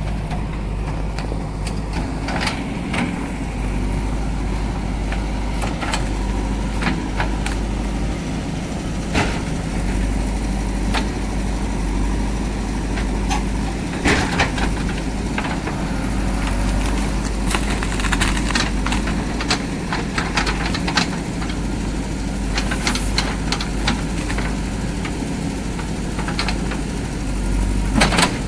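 JCB backhoe loader's diesel engine running steadily, with scattered sharp knocks and cracks over it.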